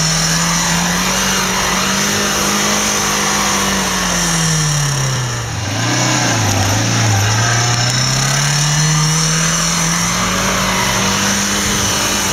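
Off-road 4x4's engine revving hard under load. Its pitch sags about halfway through, then climbs back up.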